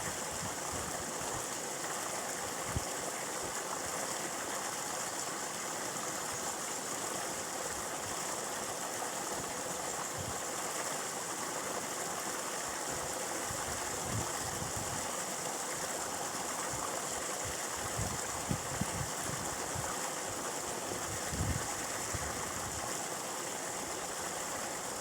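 A steady rushing noise with no pitch to it, with a few soft low thumps scattered through it.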